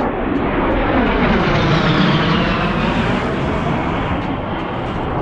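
A pair of fighter jets passing low overhead: a loud, steady jet roar, with a high whine that falls in pitch in the middle as they go by.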